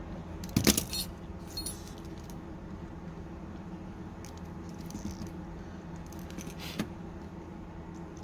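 Small metal repair tools and parts clinking and jingling as they are handled, in a few short clusters: the loudest early on, another near the end. A steady low hum sits underneath.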